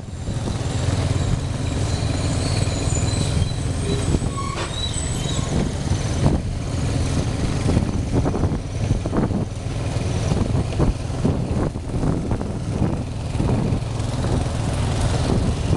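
Motorcycle engine running steadily on the move, a constant low hum mixed with road and wind noise.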